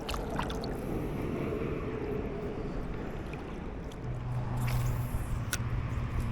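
A steady rushing noise, joined about four seconds in by a low, steady motor hum that keeps going.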